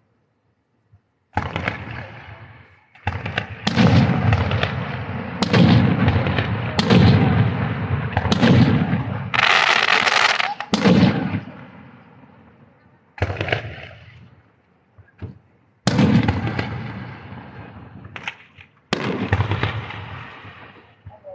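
Aerial fireworks bursting in a rapid series of loud booms, each echoing and fading over a second or two, with a hissing crackle about ten seconds in.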